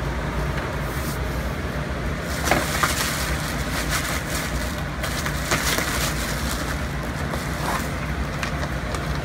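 Steady low hum and hiss, with a few faint rustles and clicks of plastic packaging and DVD cases being handled.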